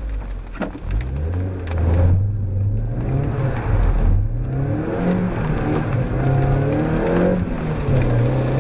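Mazda MX-5 NB's 1.8-litre four-cylinder engine heard from inside the cabin, pulling hard under acceleration with its pitch rising. It briefly drops away at gear changes about two and four seconds in, then climbs again.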